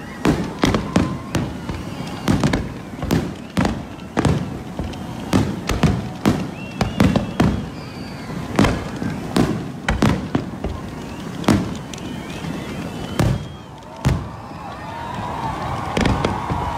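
Fireworks display: aerial shells bursting in quick, irregular succession, many loud bangs overlapping, thinning out for the last few seconds after a brief lull.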